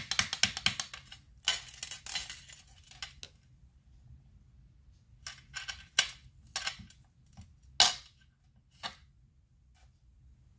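Small Versafine ink pad dabbed quickly against a stamp, a fast run of light taps. Then paper rubbing and sliding on the craft mat, and a few single clicks as pieces are set down.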